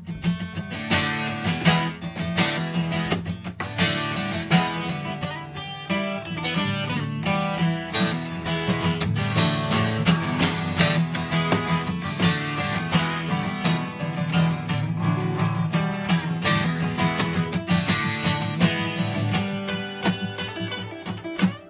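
Acoustic guitar strummed in a steady rhythm, the instrumental intro of an up-tempo rock song.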